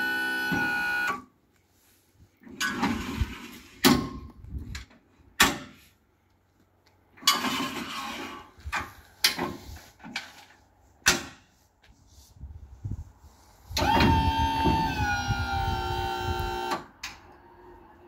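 InnoLIFT ERT1000.1500 electric straddle loader at work. An electric motor whine stops about a second in, then comes a string of short motor runs and sharp metallic knocks. Near the end the motor whines steadily again for about three seconds, its pitch dropping slightly, and cuts off.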